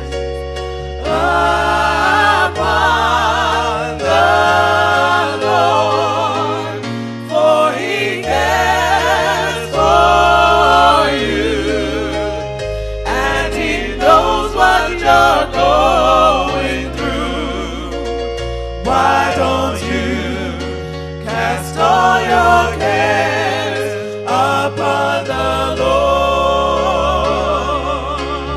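Gospel song: voices singing with vibrato over a bass line that changes note every second or two.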